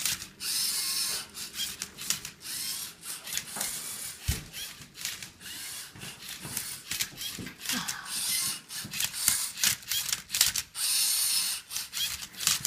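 Lego Mindstorms Rubik's cube robot working through its solve: motors running in short stretches, with quick plastic clicks and clatters as the cube is turned and flipped.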